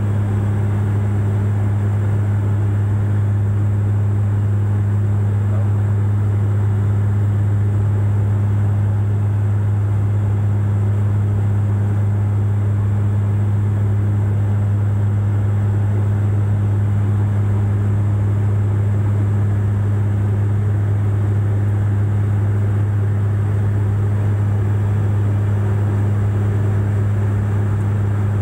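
Cabin noise of a Bombardier Q400 turboprop airliner in flight with its landing gear down. A steady, loud propeller drone holds one low pitch, with a fainter tone an octave above it, over a constant rush of air.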